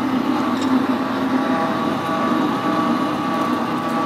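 Metal lathe running with a steady hum made up of a few even tones, while a turning tool takes a cut on the spinning metal workpiece.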